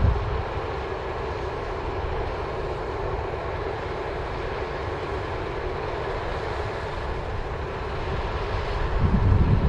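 New Holland combine harvester running steadily while harvesting barley, a constant machine drone with a held mid-pitched hum. About nine seconds in, low rumbling buffeting of wind on the microphone comes up over it.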